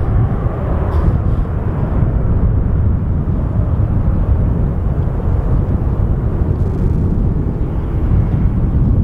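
Twin-engine jet airliner climbing out after takeoff, its engines at takeoff power making a loud, steady, deep rumble as it flies away.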